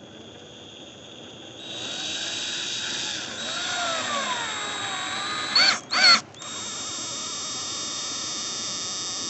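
Electric drill driving a screw: a steady motor whine that sags in pitch under load and recovers, two brief louder bursts about six seconds in, then a steady run at speed.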